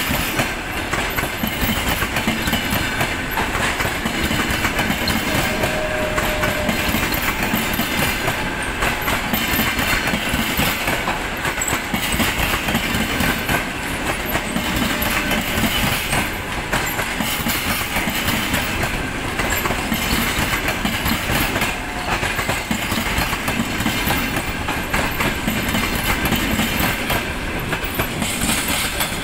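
Coaches of a locomotive-hauled long-distance passenger train rolling past close by, their wheels clattering on the rails in a steady, continuous rumble.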